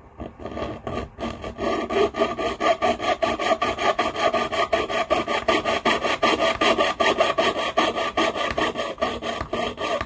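Jeweller's piercing saw cutting through a small piece of metal rivet stock, rapid back-and-forth rasping strokes about five a second. It starts with a few hesitant strokes, settles into a steady rhythm, and stops near the end.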